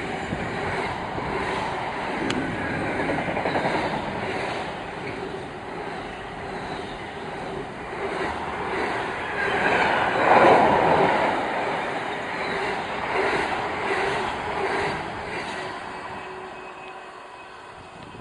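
Container freight train's wagons passing close by: a steady rumble of wheels on rail with a regular clickety-clack. It is loudest a little past halfway, then fades as the end of the train draws away.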